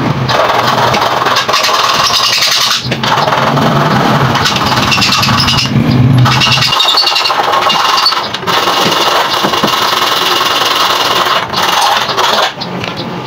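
Electric hand drill running, its bit cutting through the aluminium stile of a sliding gate to bore the lock cylinder hole. It runs in stretches of a few seconds, stopping briefly between them.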